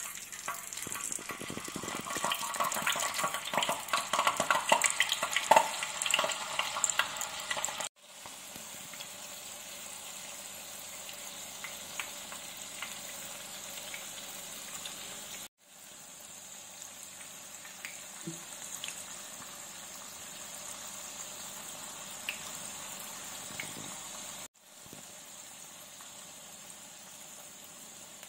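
Jalebi batter deep-frying in hot oil in a pan. A loud crackling sizzle for the first several seconds settles into a steadier sizzling hiss with occasional pops, cutting out briefly three times.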